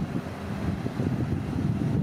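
Wind buffeting the microphone in uneven gusts over a low, steady rumble.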